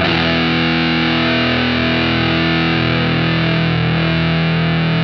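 Intro music: a distorted electric guitar chord struck and held, ringing steadily.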